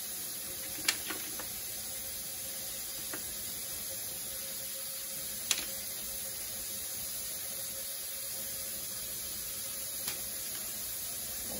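Steady background hiss with three brief light clicks, about a second in, midway and near the end, as dried pumpkin seeds and a cloth dish towel are handled over a parchment-lined pan.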